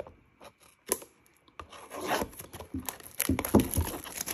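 Plastic shrink wrap on a cardboard trading-card box being cut with a box cutter and torn off by hand: a click about a second in, then crinkling and scraping rustles that grow louder over the last two seconds.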